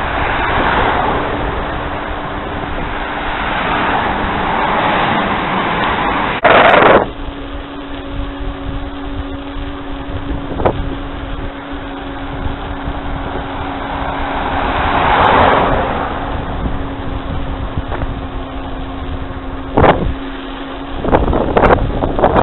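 Cars passing by on the road while riding a bicycle, each one a swelling rush of tyre and engine noise, over wind buffeting the microphone. After a loud jolt about seven seconds in, a steady hum runs underneath, another car swells past in the middle, and there are a few sharp knocks near the end.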